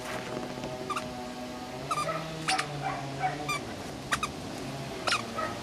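Cocker spaniel puppies at play, giving several short sharp yips over a steady low hum.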